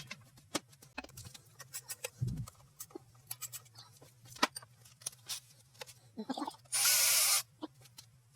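Hand tools and metal engine parts clinking and knocking in scattered clicks, over a steady low hum. About seven seconds in, a short, loud hiss lasts about half a second.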